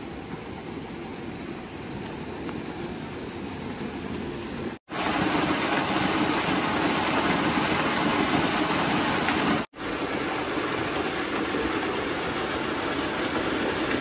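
Steady rush of water from the wooden flume of a water-powered sawmill falling onto its water wheel. It is loudest in the middle stretch, with sudden level changes at two cuts about five and ten seconds in.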